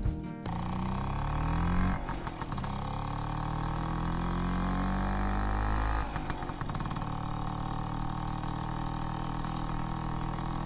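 A motor scooter engine revving. Its pitch rises over the first couple of seconds, then slowly drops, and it settles into a steady run from about halfway through.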